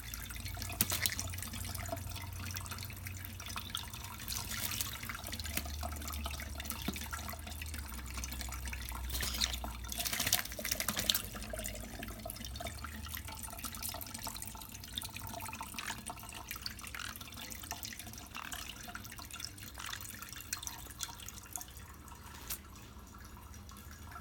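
Tap water running into a sink, with irregular splashes and drips as a small pet bird bathes under it. The splashing is busiest about halfway through.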